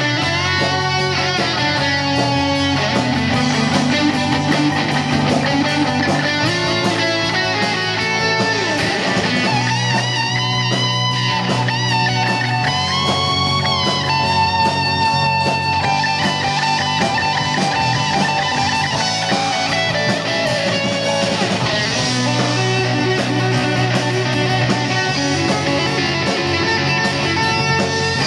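Live rock band playing an instrumental passage with no singing, with electric bass, drums, guitars and keyboard. A lead line of held, bending notes rises above the band about a third of the way through.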